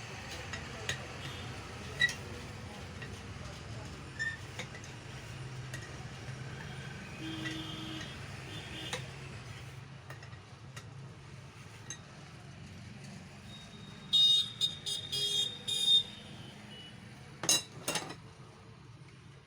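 Metal parts clinking and knocking now and then over a steady low hum, with a few louder clanks that ring on in the last few seconds.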